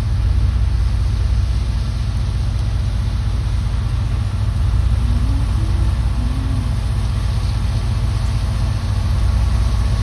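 Vehicle engine idling with a steady low drone, heard from inside the cab.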